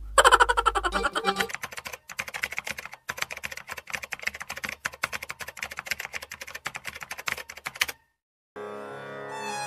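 Rapid computer-keyboard typing clicks, used as a sound effect, that cut off suddenly near the end. After a short silence, string music begins.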